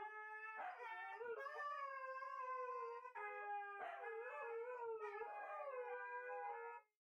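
Two Siberian huskies howling together in long, wavering notes that overlap, each held for a few seconds before breaking and starting again.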